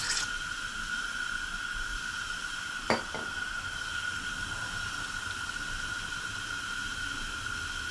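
Steady background hiss with a thin, constant high whine, and a single sharp clink about three seconds in.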